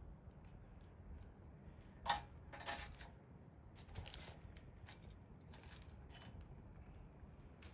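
Hardwood fire embers crackling faintly, with a few sharp pops, the loudest about two seconds in.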